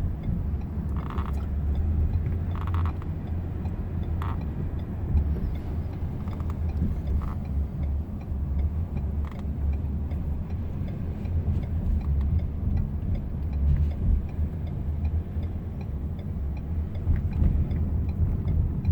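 Steady low road and drivetrain rumble heard inside the cabin of a Lincoln MKZ driving itself at low speed.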